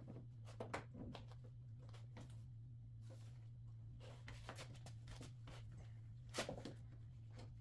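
Faint handling sounds of a stainless steel drip rail molding being pressed by hand into a car's roof channel: light scattered clicks and rustles over a steady low hum, with one sharper click about six and a half seconds in.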